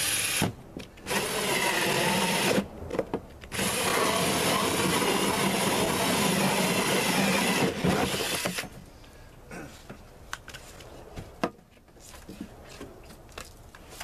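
Cordless drill turning a 4-inch hole saw through the side of a thick plastic Brute 32-gallon trash can, cutting in three spells with short pauses, the last about five seconds long. It stops about 8.5 seconds in, followed by light knocks and clicks as the can is handled.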